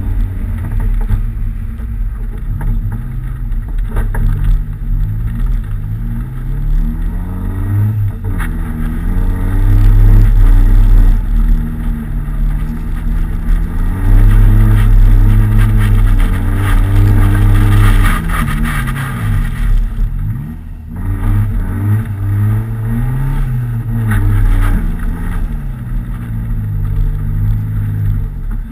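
Nissan 200SX engine revving as the car is driven on snow. Its pitch rises and falls repeatedly as the throttle is worked, loudest in the middle stretch, with a short drop about twenty seconds in before it picks up again.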